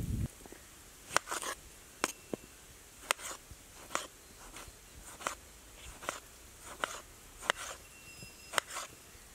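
Chef's knife slicing through a tomato and knocking on a wooden cutting board, a sharp tap about once a second.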